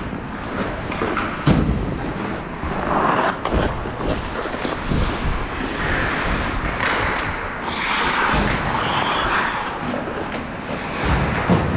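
Ice hockey play: skate blades scraping and hissing on the ice, with sticks and puck clacking and thuds against the boards, a harder hit about a second and a half in and another near the end.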